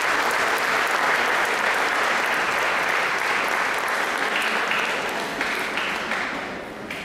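Audience applauding, with the clapping dying away near the end.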